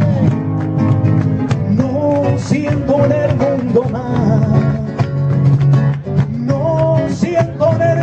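Flamenco music: rapidly strummed Spanish guitar under a singer's wavering, ornamented wordless line.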